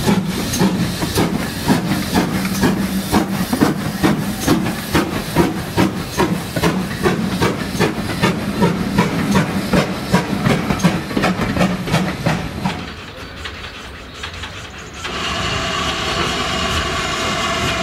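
A Great Western steam locomotive with coaches passes close by, with a steady rhythmic beat about three times a second over a low hum. After a drop about thirteen seconds in, a steady steam hiss with a few held whistling tones takes over.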